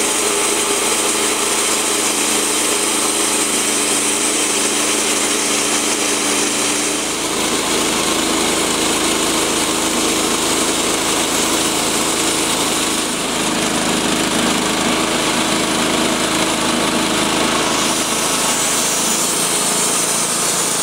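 Portable band sawmill running, its band blade cutting lengthwise through a dead black cherry log. A steady loud machine noise whose low hum changes about seven seconds in.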